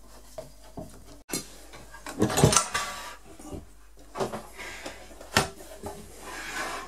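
Metal clatter and knocks from a small portable bandsaw being handled and set back upright on its sheet-metal base, with the loudest clatter about two seconds in and a sharp knock past the middle.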